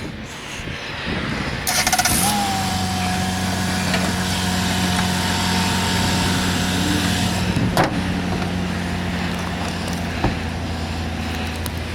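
A car engine cranks briefly and catches about two seconds in, then idles steadily, on a freshly replaced battery. Two sharp clicks come later.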